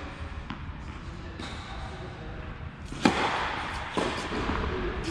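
A tennis ball is bounced on the court before a serve, then struck hard by the racket about three seconds in with a loud crack that rings through the large hall. A second sharp impact follows about a second later.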